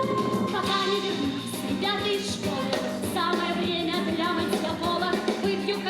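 A song from a stage musical: a voice singing with vibrato over band accompaniment.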